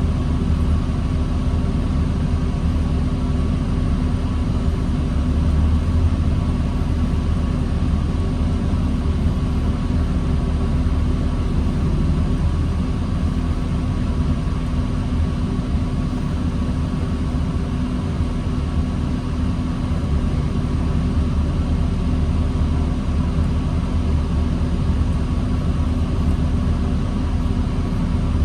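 Diesel engine of a 2009 New Flyer D40LFR transit bus running steadily at low speed with a low hum and a few steady tones, without revving.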